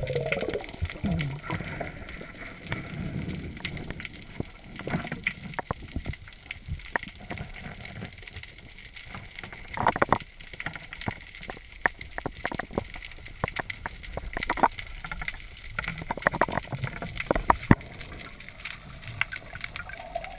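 Underwater sound picked up by a submerged camera: many irregular sharp clicks and crackles over a low water rush, with a muffled, shifting low sound in the first second or so.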